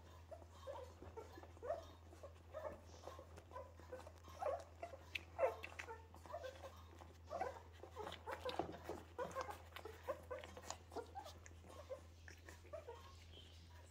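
Lagotto Romagnolo puppies nursing from their mother, making many short, high squeaks and whimpers with small clicking sounds, busiest in the middle of the stretch.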